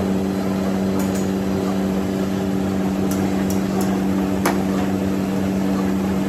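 A steady mechanical hum of factory machinery over the sizzle of gulab jamun deep-frying in a large iron karahi of oil, with the long metal ladle clicking against the pan about six times as it stirs.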